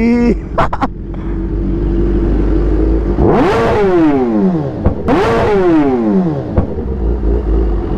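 Kawasaki ZX-10R's inline-four engine blipped twice, each rev climbing quickly and then falling away over about a second and a half. A sharp pop comes as each rev dies.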